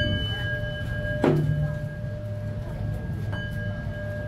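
A Buddhist bowl bell is struck twice, at the start and a little over three seconds in. Each stroke rings on with a few clear, steady tones. Between them, about a second in, comes a single thud on a hand drum, with a steady low hum underneath throughout.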